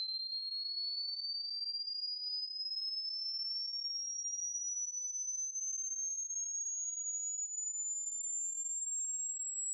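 Hearing-test frequency sweep: a single pure, high whistle-like tone climbing slowly and evenly in pitch, rising about an octave at a steady level. The climbing pitch is what tests the upper limit of hearing, the point where it fades out for a listener marking their ear age.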